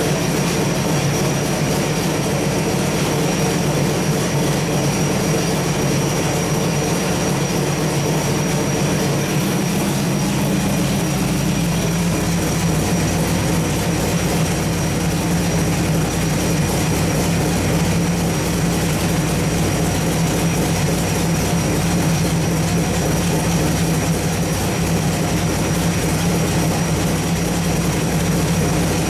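Small-block Chevrolet 383 stroker V8 running at a steady speed on an engine dyno, a constant heavy drone whose low tone shifts slightly about eleven seconds in.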